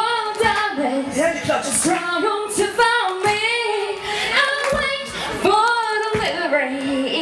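A woman singing a melodic line into a handheld stage microphone, her voice amplified, with held notes that slide in pitch.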